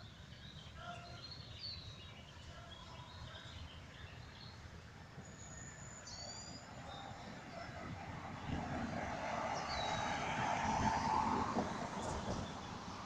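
Birds chirping in short high calls over a low rumble, while the noise of an unseen vehicle swells, loudest about three-quarters of the way through, then eases.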